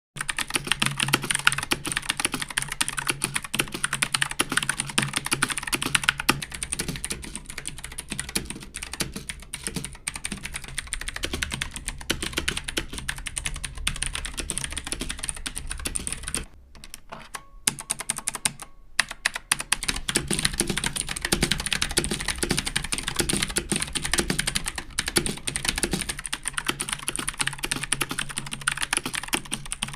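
Computer keyboard typing: a fast, continuous run of keystroke clicks that thins out to a few scattered keystrokes for about three seconds a little past halfway, then resumes at full speed.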